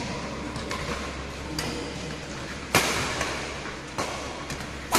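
Badminton rally: rackets striking the shuttlecock about half a dozen times, sharp smacks that ring on in the hall's echo, the loudest a little past halfway and at the very end.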